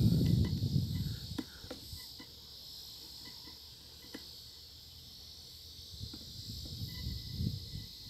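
Steady high-pitched insect chirring from the surrounding fields, with a low rumble of wind or handling on the microphone that is loud in the first second, fades, and comes back near the end. A few faint clicks are scattered through.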